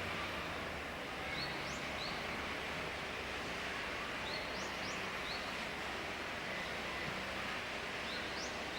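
Common kingfisher giving short, high, sharply rising calls in three small groups, about a second and a half, four and a half and eight seconds in, over a steady background hiss.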